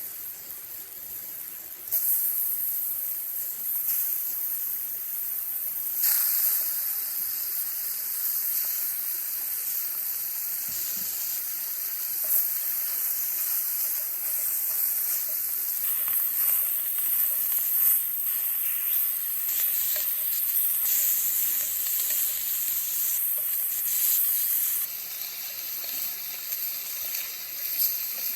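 Food frying in a pan: a steady sizzle that jumps louder about two seconds in and again about six seconds in, easing a little near the end.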